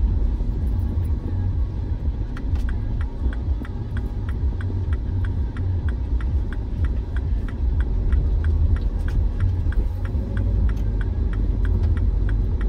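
Steady low road and engine rumble inside a moving car's cabin, with the turn-signal indicator ticking, roughly three ticks a second, starting about two seconds in as the car turns right.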